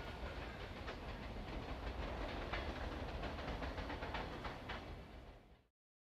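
Rumble of a freight train moving away along the track, with a few sharp wheel clicks over rail joints. The sound cuts off suddenly near the end.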